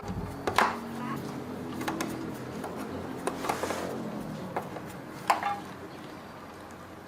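Sharp knocks and clatter of hard objects, the loudest about half a second in and about five seconds in, with lighter taps and a brief hiss between.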